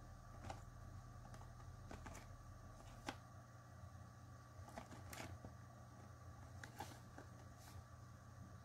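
Faint, scattered taps and rustles of a small cardboard puzzle box with a clear plastic window being turned over in the hands, about half a dozen soft clicks spread out over a faint steady hum.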